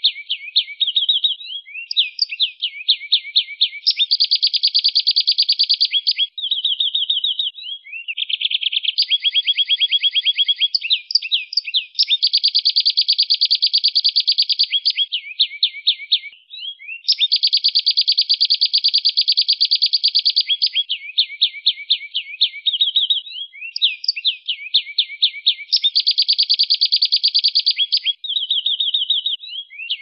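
Domestic canary singing a long, almost unbroken song of rapid trills and rolls, each phrase a fast run of repeated notes lasting one to three seconds, with a few short pauses.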